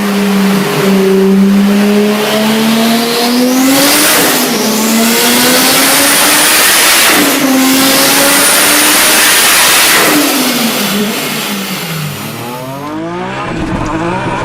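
Turbocharged car engine accelerating hard, its pitch climbing and dropping at each gear change, about four, seven and ten seconds in, with a loud rushing hiss over the engine through the middle. The engine winds down after the last shift.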